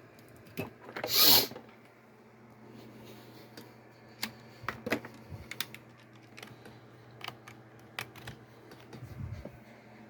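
Irregular light clicks and taps, like keys or buttons being pressed, over a faint steady hum, with a short louder rustling burst about a second in.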